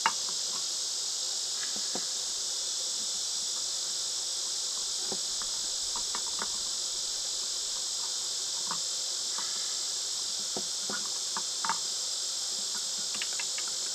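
Steady, high-pitched chorus of katydids that goes on without a break. Light clicks and taps come and go over it, and there is one sharp click right at the start.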